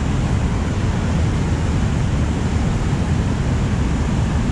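Steady rush of river water pouring over a dam spillway and churning in the current below.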